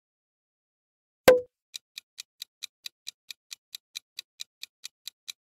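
A single sharp pop about a second in, then a countdown timer's clock-ticking sound effect: quick, even ticks, about four or five a second.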